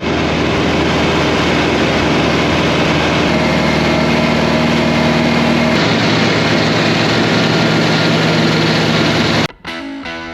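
A machine engine running steadily and loudly, with a fixed low hum, which cuts off abruptly about nine and a half seconds in as music with drums and guitar begins.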